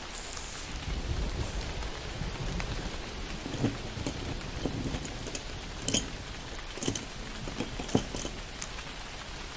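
Steady rain falling, with a low rumble about a second in and several sharp drips or knocks in the second half.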